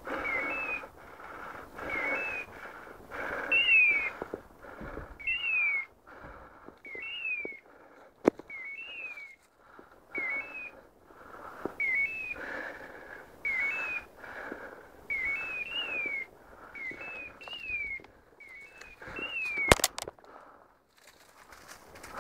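A hunting dog's beeper collar sounds a repeated two-note electronic chirp: a short chirp and then a longer note that rises and falls, about every one and a half seconds. Under it runs rustling through dry brush, with a sharp crack near the end.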